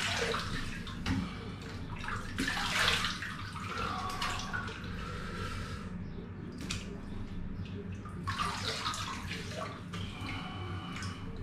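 Water splashing and dripping in a tiled thermal-spring pool as hands scoop water up onto a face, several splashes over the span, over a steady low hum.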